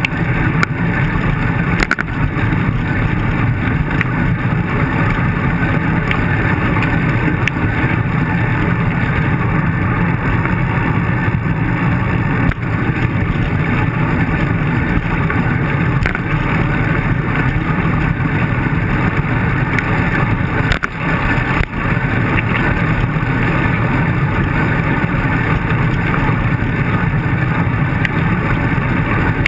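Steady rumble of a bicycle rolling over rough pavement, with wind buffeting the microphone, and a few sharp knocks from bumps in the road.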